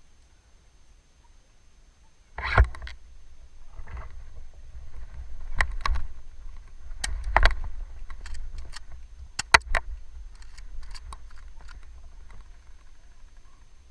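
Movement through wet marsh: irregular sloshing and rustling with a low rumble, broken by scattered sharp clicks and snaps. It starts after about two quiet seconds.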